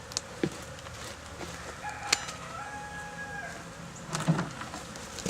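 A rooster crows once, starting about two seconds in, over a steady hum of honeybees. A few sharp knocks come before and after the crow.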